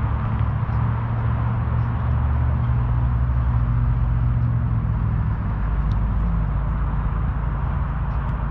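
A steady low rumble that stays loud throughout, its pitch shifting a little twice, with one faint sharp tick about six seconds in.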